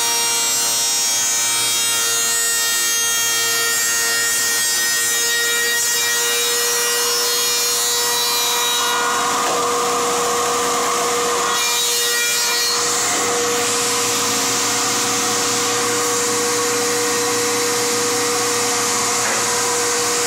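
Spindle moulder of a Casadei C41C combination machine running with a tenon cutter: a steady high-pitched whine. About halfway through, the cutter bites into the wooden rail for a few seconds with a louder rasping cut, then the machine runs on.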